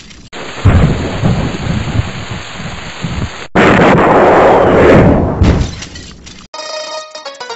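Intro sound effect of rumbling, thunder-like noise: a loud crash with a deep rumble that cuts off abruptly after about three seconds, followed at once by a second rushing rumble that swells and fades. Music with a bright percussive melody starts near the end.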